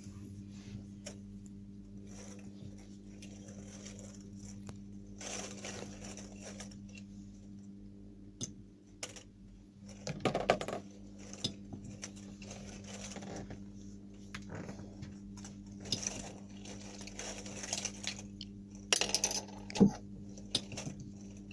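Scattered light clicks and clinks of small objects being handled, over a steady low electrical hum.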